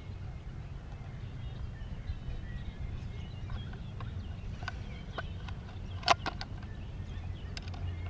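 Faint bird chirps over a low steady rumble, with scattered sharp clicks; the loudest click comes about six seconds in.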